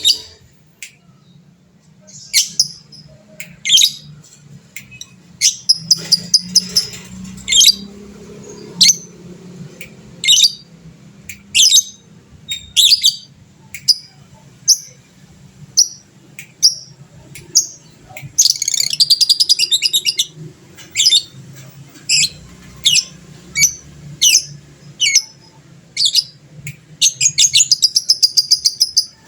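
Fighter lovebird calling in sharp, shrill chirps about once a second. Twice, in the middle and near the end, it breaks into a long, rapid chattering trill of about two seconds: the 'ngekek panjang' long chatter that keepers prize.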